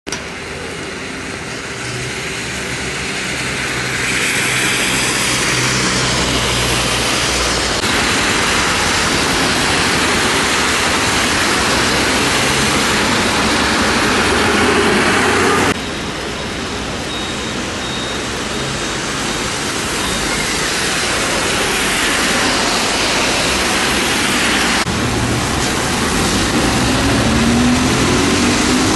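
Steady hiss of rain and traffic on wet city streets, with tyres swishing through water and vehicle engines passing. The sound changes abruptly several times, and near the end an engine rises in pitch as a vehicle pulls away.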